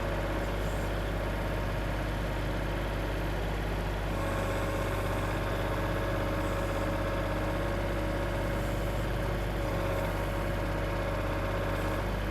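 Kubota compact tractor's diesel engine running steadily at a constant speed, getting slightly louder about four seconds in.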